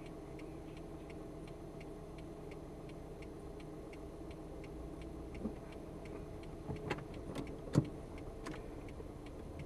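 Inside a car's cabin: the engine idling steadily while the indicator ticks about three times a second. A few knocks in the second half, the loudest about eight seconds in.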